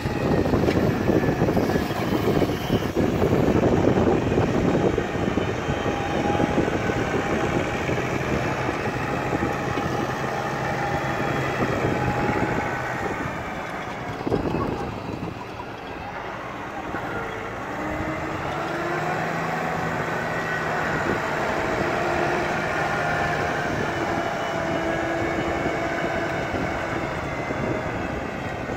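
New Holland Blue Power tractor's diesel engine running under load as it pulls a Horsch seed drill through tilled soil. The sound is a steady, dense engine noise, loudest in the first half, dipping in the middle, and a hum whose pitch shifts in the second half.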